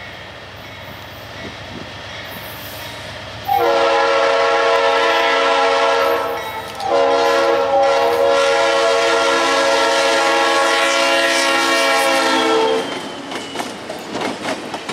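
Diesel freight locomotive's multi-tone air horn sounding two blasts, a short one and then a long one of about six seconds, over the low rumble of the passing train. After the horn, the wheels clack and rattle over the rails.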